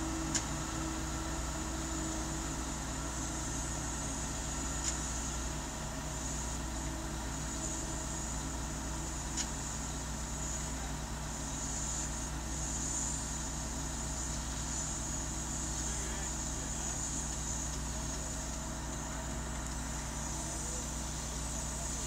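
Engine of a Tuckerbilt T630 concrete buggy idling steadily, with three faint clicks in the first ten seconds.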